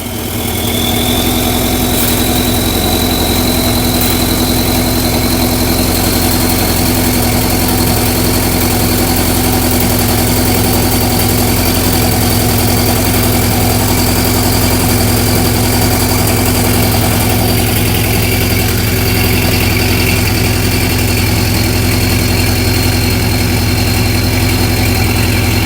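Porsche 718 Cayman S turbocharged flat-four idling steadily just after a cold start, through a catless race downpipe and the Porsche Sport Exhaust in standard mode. A thin high whine rises slightly in the first couple of seconds and then holds.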